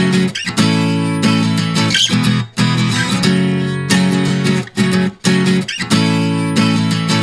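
Music led by acoustic guitar, playing chords that change every second or so.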